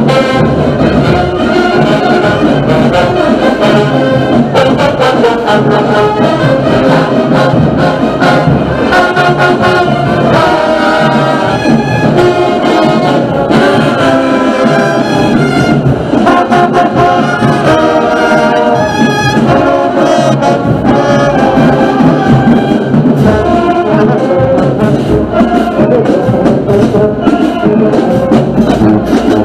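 Marching band playing loudly, its trumpets and trombones carrying the tune over drums.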